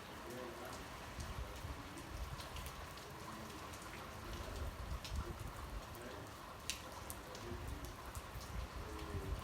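Rain falling steadily, with single drops striking a hard surface in sharp ticks now and then.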